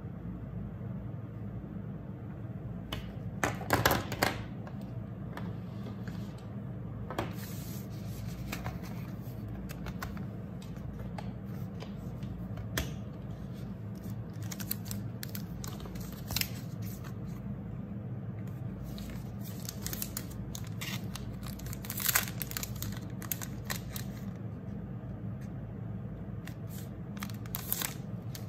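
Stationery being handled on a desk: scattered short taps, clicks and crinkles as markers and a spiral notebook are moved, with a sticky-note pad's clear plastic packaging rustling near the end, over a steady low hum. The loudest cluster of taps comes a few seconds in.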